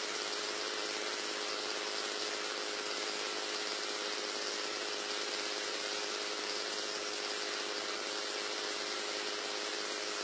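Machine running steadily: a low hum made of a few fixed pitches over an even hiss, with no change in speed.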